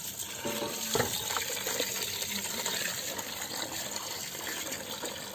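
Water from a hose pouring steadily into an aluminium pot of raw meat pieces as hands rinse the meat, with a light knock about a second in.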